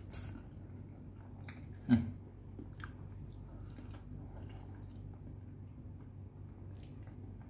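A man chewing soft cooked labang fish roe with his mouth closed, with small wet mouth clicks. A single loud thump about two seconds in.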